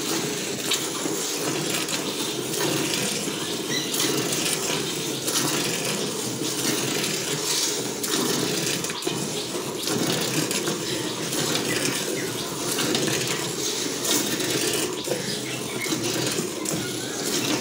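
Hand-milking a cow: streams of milk squirted from the teats into the foamy milk in a metal bucket, a steady run of liquid filling sounds.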